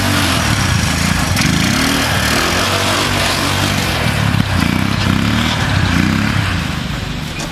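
The small engine of a repowered 1969 Roof Palomino lawn-mower mini jeep, running on its first test drive. Its pitch rises and falls several times as the throttle is opened and eased.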